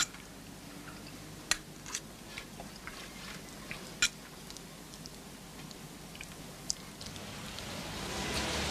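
Cutlery clinking against plates at a meal: several short, sharp clinks a second or two apart. Near the end a steady hiss swells in.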